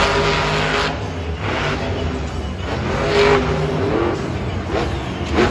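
Monster truck's supercharged V8 engine revving in repeated surges, its pitch climbing and dropping with the throttle as the truck accelerates and jumps on the dirt track.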